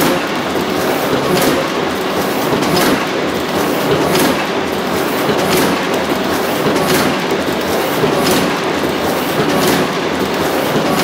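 Original Heidelberg Cylinder die-cutting press running, a steady mechanical clatter with a sharp click about every second and a half as each cycle of the cylinder comes round.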